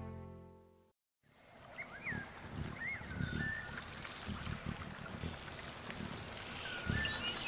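Tender music fades out to a moment of silence. A wild-animal soundscape then fades in: a haze of outdoor ambience with short rising-and-falling bird-like calls and low uneven rumbling, growing louder toward the end.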